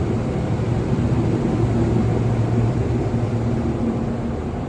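Lift (elevator) running between floors after its doors have closed: a steady mechanical hum with a low drone, strongest around the middle and easing slightly near the end.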